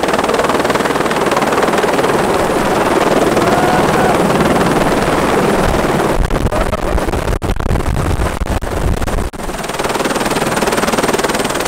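Helicopter running close by, loud and steady, with its rotor wash buffeting the microphone in heavy rumbling gusts from about halfway through.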